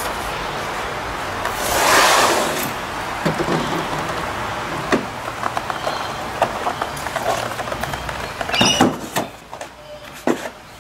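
A Starlink dish and its cardboard packaging being handled. There is a rustling swoosh about two seconds in, then a string of knocks, taps and scrapes as the dish is set on its kickstand and the box inserts are pulled out, over steady background noise that drops away near the end.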